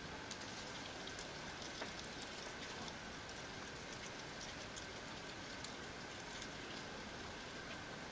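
Baby possums nibbling and chewing food: faint, irregular high clicks and ticks, several a second, over a steady hiss.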